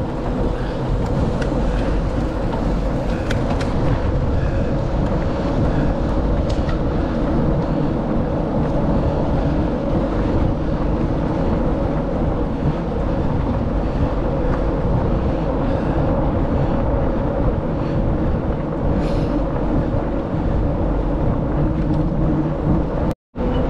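Steady road noise of travelling along a gravel road: tyre rumble and a constant hum, with no let-up, cutting out for an instant near the end.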